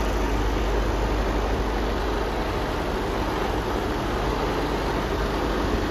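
Mercedes Actros 2545 tractor unit's diesel engine idling steadily: a constant low rumble under a broad hiss.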